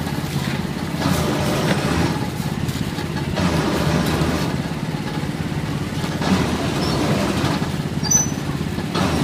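Steady engine rumble of street traffic, with motorbike engines running close by.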